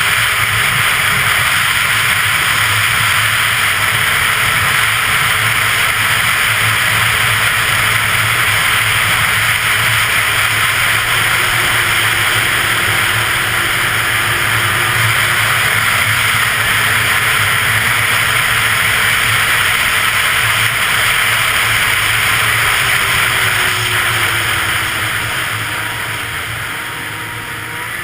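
Arctic Cat CFR 800 snowmobile running steadily at speed, its engine drone mixed with a broad rush of track and wind noise. It eases off and quietens near the end.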